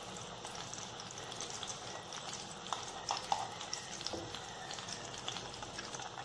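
Bread kababs shallow-frying in hot oil in a pan: a steady sizzle with fine crackles. From about three seconds in come a few light clicks as a steel spoon turns the patties over in the pan.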